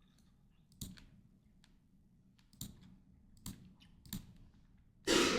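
Four separate sharp clicks spread over about three seconds, typical of computer keyboard or mouse use at a desk, then a louder burst of noise near the end.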